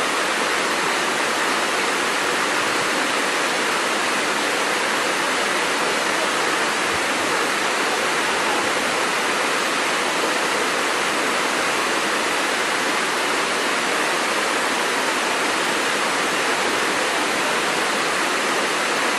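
Waterfall cascading over rocks into a stream: a steady, even rush of falling water.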